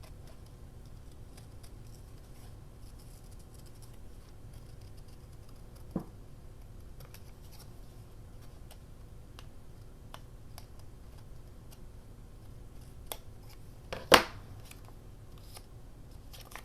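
Scissors snipping paper in small scattered clicks, with a single knock about six seconds in and a much louder sharp click near the end.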